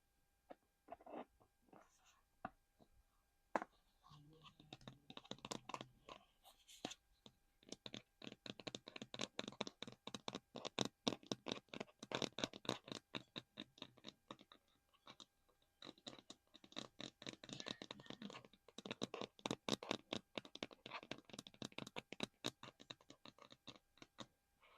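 Close-miked fingers tapping and scratching on a small hard collectible: a few scattered clicks at first, then a dense, rapid flurry of taps and scratches with a short lull midway.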